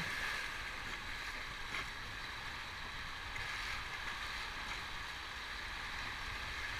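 Rushing whitewater of a rocky mountain river around an inflatable raft: a steady hiss of running rapids.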